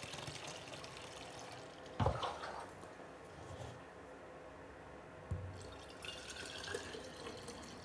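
Water being poured into a one-quart glass mason jar, a faint splashing fill, with two soft knocks about two and five seconds in.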